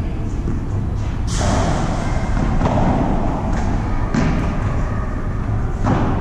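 Padel ball hits during a rally on a glass-walled court: four sharp, echoing hits, the loudest about a second in, over a steady low rumble.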